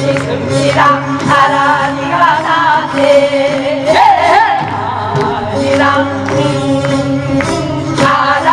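Women singing a Namdo minyo, a Korean southern folk song, into microphones with a wavering, vibrato-laden melody over amplified instrumental accompaniment with a steady bass line.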